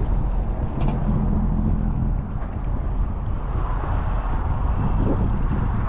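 Steady rumble of road traffic with wind buffeting the microphone.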